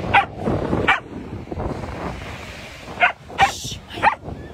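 A Samoyed barking: five short, sharp barks, two in the first second and three more close together near the end, over the wash of surf and wind.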